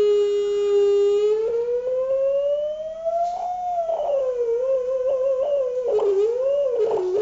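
Loudspeaker driven by a signal generator sounding one note with overtones, setting up the standing wave in a Rubens tube. It holds steady, then glides up for a couple of seconds, falls back and wavers up and down as the frequency is changed, with a couple of faint knocks near the end.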